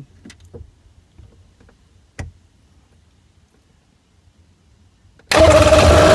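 Polaris watercraft's Ficht fuel-injected two-stroke engine being started about five seconds in: a sudden loud running sound with a steady high tone in it. Before that it is quiet apart from a single click about two seconds in.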